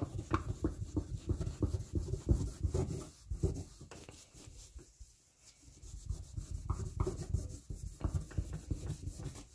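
Microfiber cloth rubbing back and forth over a painted sheet-metal panel, polishing the paint in quick strokes. The rubbing eases and goes quieter for a moment in the middle, then picks up again.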